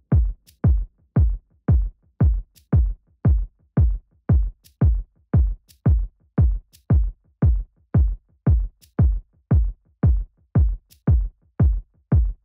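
Background electronic music with a steady kick-drum beat, about two beats a second, and an occasional high tick.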